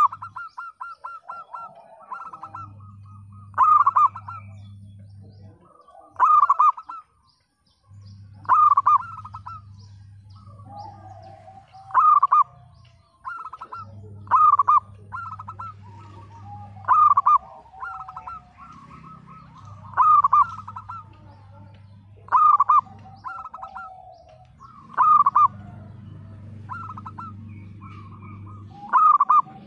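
Zebra dove (perkutut) cooing over and over, a loud call every two to three seconds with runs of quick, short staccato notes between.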